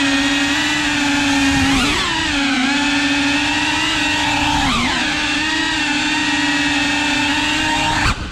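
Cinewhoop FPV quadcopter's motors and propellers whining at a steady pitch, dipping and recovering briefly twice as the throttle shifts, then falling away abruptly at the very end as the throttle is cut.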